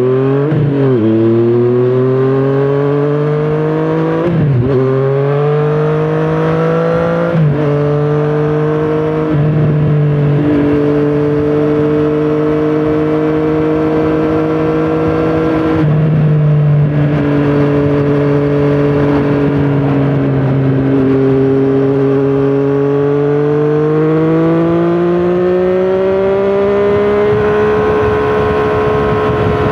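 Triumph Street Triple 765 RS inline three-cylinder engine through a Scorpion Serket Taper carbon exhaust, accelerating hard with several quick upshifts in the first ten seconds. It then holds a steady cruise and pulls up in revs again near the end.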